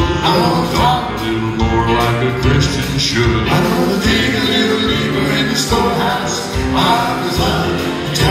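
Male gospel quartet singing into microphones, with instrumental backing.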